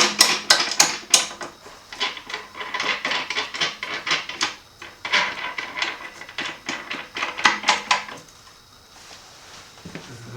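Motorcycle rear wheel spun on a static balancer's bearings for a runout check, with rapid irregular clicking and tapping for about eight seconds that then dies down to a faint sound.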